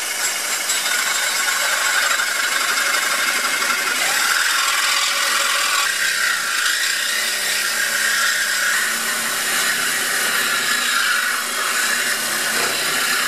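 Reciprocating saw with a metal-cutting blade cutting steadily through a steel exhaust pipe.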